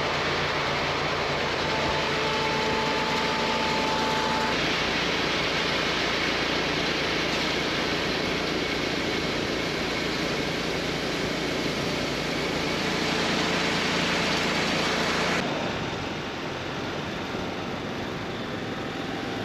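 Farm machinery running steadily: a grain auger at a hopper-bottom bin and idling semi truck engines. For the first few seconds it is a hum with a few held tones, then a harsher even noise that drops off suddenly about fifteen seconds in to a quieter steady hum.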